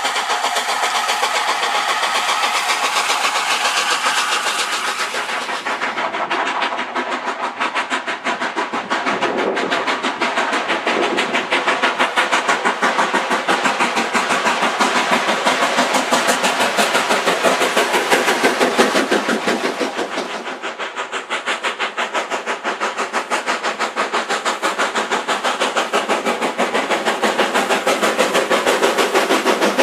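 Steam locomotives working trains, their exhaust making a rapid, even beat. The sound changes character about six seconds in and again about twenty seconds in, as different engines take over.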